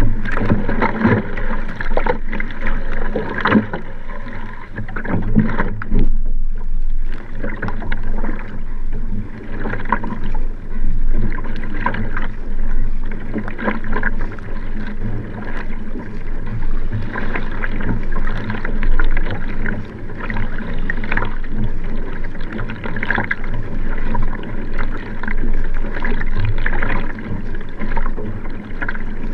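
Water rushing and splashing along the hull of a Nelo Vanquish sprint racing kayak moving at race pace, with the splash of the paddle blades on each stroke, heard close up from the stern deck.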